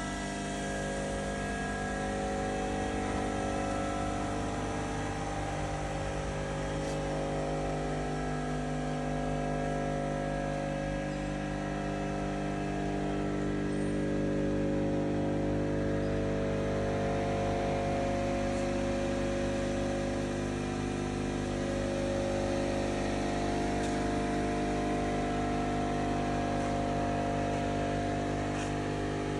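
Enshu E130 vertical machining center running: a steady machine hum made of many tones at once, some of the higher ones drifting slightly in pitch.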